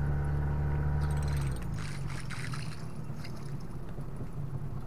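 Small boat's engine running steadily, then dropping in speed and level about a second and a half in and running unevenly at a low throttle.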